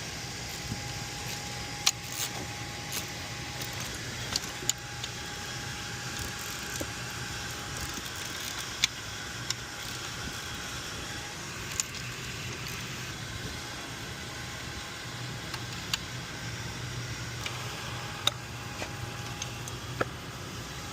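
A steady machinery hum with a faint steady tone above it, broken by scattered sharp metallic clicks and clinks, about a dozen over the stretch.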